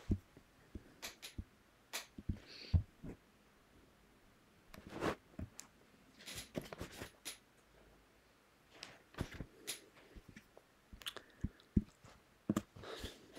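Scattered handling noise: irregular sharp clicks and short soft rustles, with quiet gaps between them.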